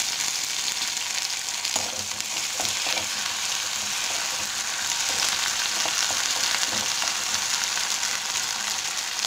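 Chopped onions, fried to light brown, and ginger-garlic paste sizzling steadily in hot sesame oil in a kadai, with a spatula stirring and scraping now and then.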